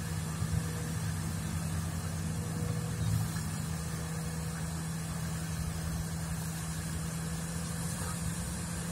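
Heavy diesel engines of an excavator and a Volvo haul truck running steadily while the excavator loads the truck, giving a continuous low hum.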